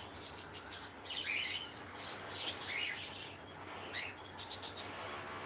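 Small birds chirping in short, scattered calls, with a quick run of clicks about four and a half seconds in.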